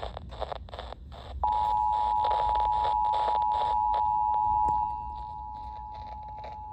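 Emergency Alert System two-tone attention signal starting about a second and a half in, a steady, loud two-note tone that marks the start of an emergency alert. It drops in level near five seconds in and keeps sounding.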